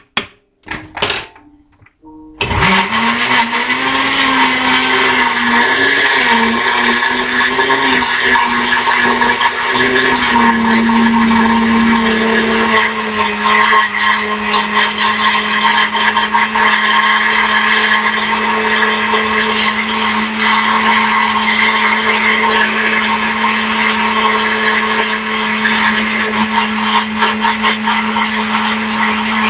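Countertop blender with a few knocks as its lid goes on, then its motor starting about two seconds in, blending a frozen fruit smoothie mix. The pitch wavers for the first several seconds while the mix is still frozen, then settles into a steady whine.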